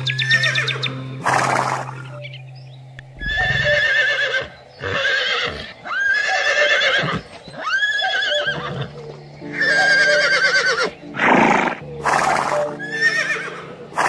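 Horse whinnying about five times in a row, each call wavering in pitch, over background music. Short noisy bursts come near the start and again near the end.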